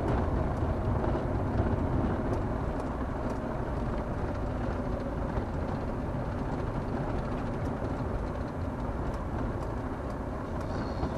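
A car driving, heard from inside the cabin: steady engine and tyre noise that eases off slightly near the end.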